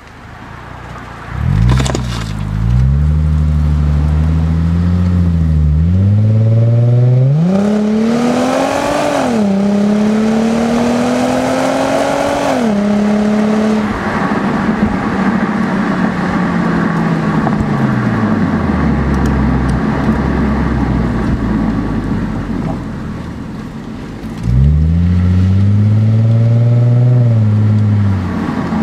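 A 2006 Lexus IS250's 2.5-litre V6 heard at the tailpipe of its Greddy SE cat-back exhaust during hard acceleration: the note rises, drops briefly at each upshift and climbs again, then falls away as the throttle lifts, leaving road and wind noise. Near the end a second short pull rises and drops off again.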